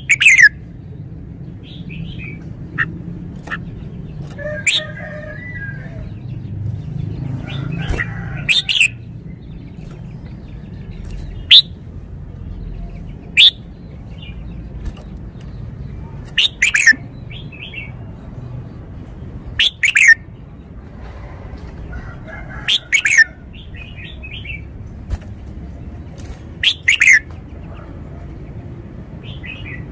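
Caged red-whiskered bulbul singing short, loud, sharp song phrases, one every two to three seconds, over a steady low background rumble.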